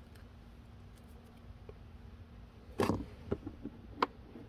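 Small handling noises: a short crackle of the 3M tape backing being peeled off the magnet about three seconds in, a few light clicks, then a sharp click near the end as the small magnet is set down on the plastic door sill.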